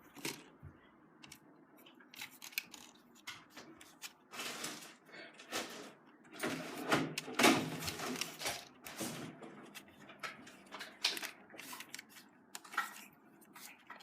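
Handling noises while unpacking a toy radio-control car: irregular clicks, knocks and short rustles of plastic and cardboard packaging, busiest in the middle.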